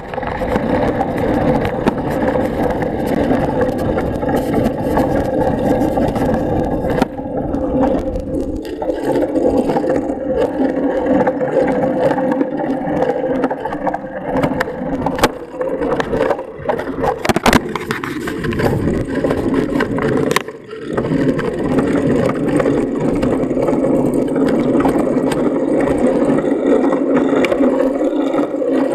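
Steady rolling noise of a bicycle ridden along a road, heard from a camera mounted on the handlebars, with a few sharp clicks and rattles from the bike. The noise drops briefly about twenty seconds in.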